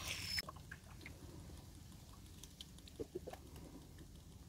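Quiet water sounds around a small boat: a short splash at the very start, then faint dripping with a few light knocks about three seconds in.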